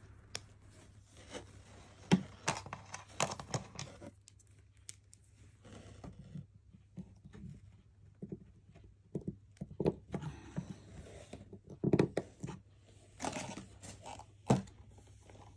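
Small vinyl toy figure being pressed onto its plastic base and set down on a wooden tabletop: irregular plastic clicks, knocks and scrapes in short clusters, with a few sharper knocks.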